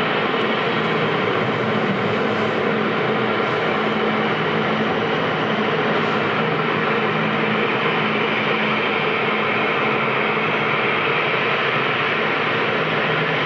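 Aircraft engines running steadily: a constant rushing noise with a faint low hum, unchanging throughout.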